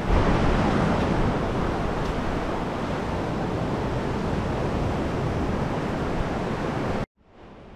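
Surf washing on a beach, with wind buffeting the microphone: a steady rushing noise that cuts off suddenly about seven seconds in and then comes back fainter.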